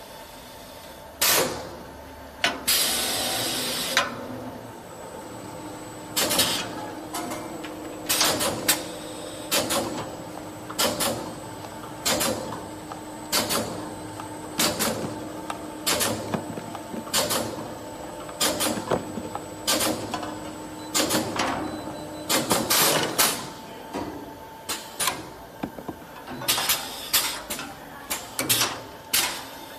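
Automatic paper tube recutting machine running: sharp mechanical clacks about once a second as it cycles through feeding and cutting the tubes, over a steady machine hum. A short burst of hissing comes about three seconds in.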